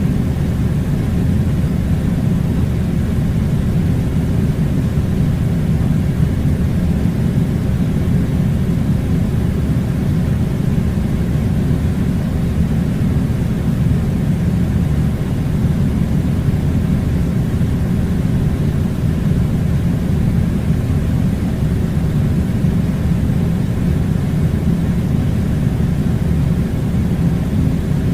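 Air-conditioning unit running: a steady, unchanging low rumble with a faint hum above it.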